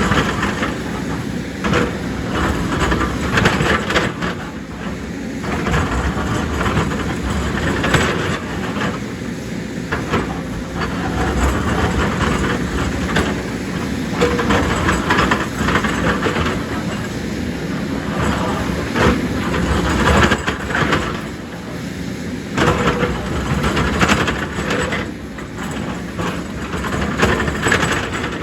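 Heavy JCB excavator working: its diesel engine running under load, with irregular clanking, scraping and knocking as rock and earth are dug and moved.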